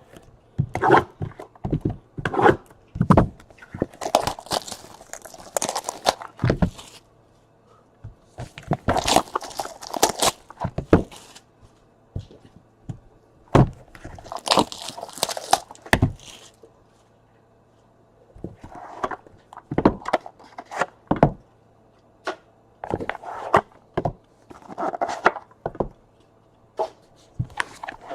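Hands opening a 2018 Topps Triple Threads baseball card box. There are three long stretches of rustling and tearing of wrapping and cardboard, among many short knocks and thunks as the box and its contents are handled.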